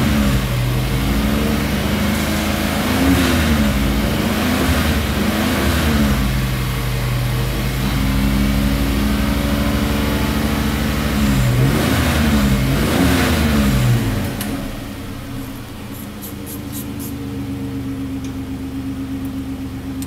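2002 Holden TF Rodeo's 3.2-litre V6, heard from inside the cab, held at about 3,000 rpm with the revs dipping and rising a few times. About fourteen seconds in it drops back to a steady idle.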